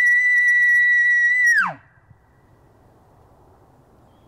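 Imitation elk bugle blown through a Rocky Mountain Hunting Calls bugle tube: a loud, high whistle held steady, then dropping sharply in pitch and cutting off under two seconds in.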